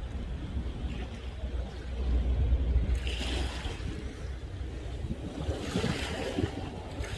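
Sea waves washing in, swelling louder about three seconds in and again near the end, with wind rumbling on the microphone.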